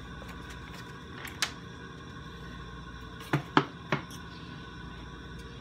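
Room tone with a steady low hum, broken by a single click about a second and a half in and three quick sharp knocks a little past the middle: handling noises at a table.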